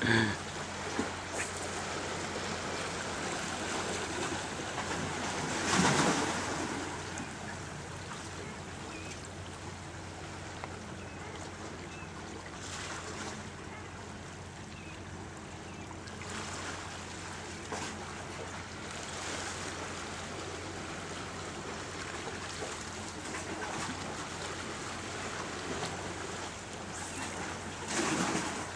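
Ocean water washing against the rocks of a jetty: a steady rush of surf with two louder surges, about six seconds in and near the end.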